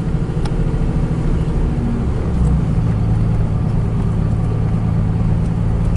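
A car engine running, heard from inside the cabin: a steady low hum whose pitch shifts about two seconds in.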